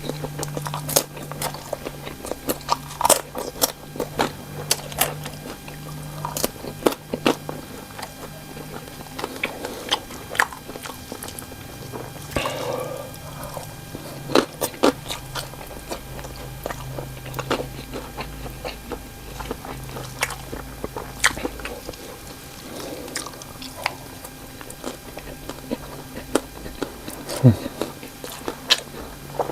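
Close-up mouth sounds of cocktail sausages in green chili sauce being bitten and chewed, with irregular wet smacks and clicks, over a steady low hum.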